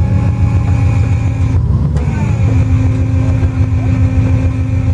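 4x4 wrecker's engine running steadily, a deep rumble with a faint steady whine over it.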